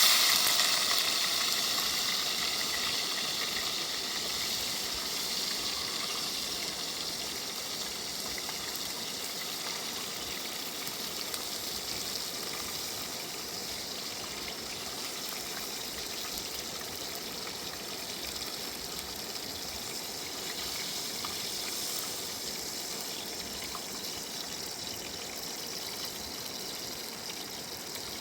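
Steady rush of running water, loudest at the start and then settling to an even level.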